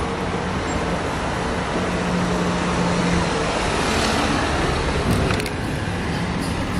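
City street traffic noise: a steady rush of passing vehicles, with a couple of sharp clicks a little after five seconds in.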